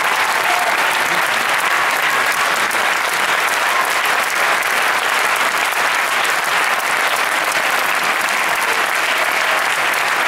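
Audience applauding steadily: dense, even clapping with no music.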